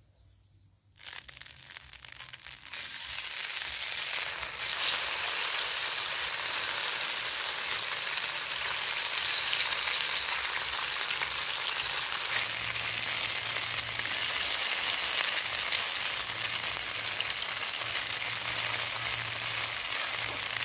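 Tofu cubes frying in hot oil in a shallow pan: a steady sizzle that starts about a second in, grows over the next few seconds and stays even from about five seconds in.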